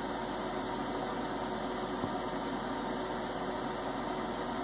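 Steady mechanical hum with a faint constant tone, like a running motor or fan; the hand-turned die on the plastic part makes no distinct sound above it.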